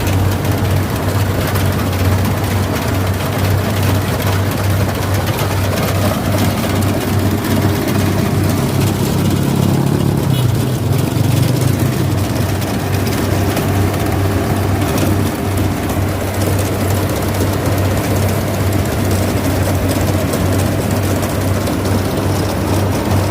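Combine harvester running steadily while harvesting rice: a loud, constant low engine drone together with its threshing machinery. About halfway through, a higher engine note swells for a few seconds, then settles back.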